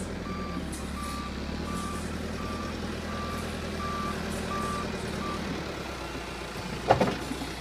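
Backhoe's diesel engine running under its reversing alarm, which beeps steadily at one pitch about eight times and stops a little past halfway. Near the end there is one sudden loud knock.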